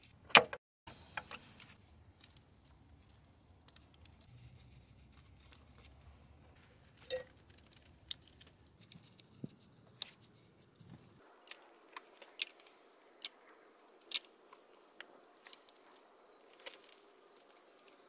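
Hand tools and engine parts clicking during reassembly: a sharp metallic click just after the start as pliers let go of a spring hose clamp, then scattered light clicks and taps of plastic and metal parts being handled and seated on the valve cover.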